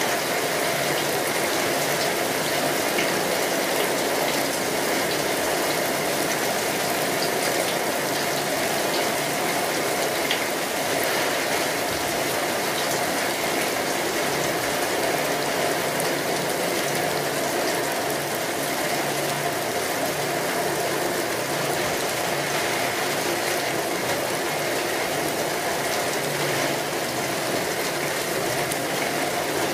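Steady rain falling: an even hiss thick with fine drop ticks, holding at the same strength throughout.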